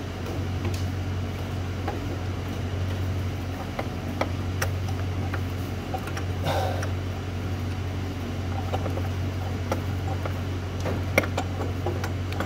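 Light, irregular clicks and taps of a socket and a hand working at the ICP sensor deep in a Ford 6.0 Powerstroke diesel's engine valley, with a brief scrape about halfway through, over a steady low hum.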